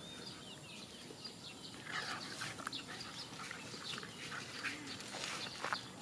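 Two dogs play-fighting, making short scattered yelping and snarling sounds, bunched in two flurries about two seconds in and near the end.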